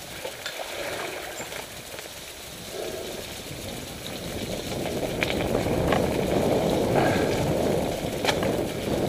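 Mountain bike rolling along a wet, muddy gravel lane: a rushing noise of tyres on gravel and water with scattered rattling clicks, growing louder from about halfway through.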